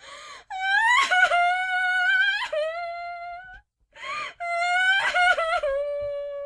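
A female voice crying in long, high wails. Each wail starts with a sharp gasping breath, and there are two of them; the second begins about four seconds in.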